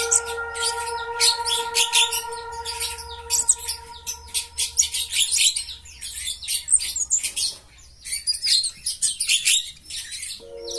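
Young male olive-backed sunbird, still in green plumage, singing: a fast, continuous stream of high, sharp chirps and twitters, with a short lull about eight seconds in.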